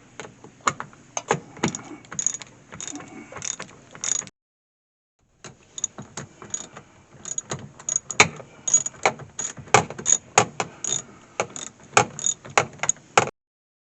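Ratchet wrench clicking as bolts are run in to secure a vending machine's refrigeration unit, in quick irregular runs of clicks broken by a second of silence partway through.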